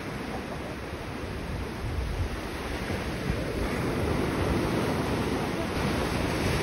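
Small waves breaking and washing up a sandy beach, a steady rush of surf that gets louder about halfway through, with wind buffeting the microphone.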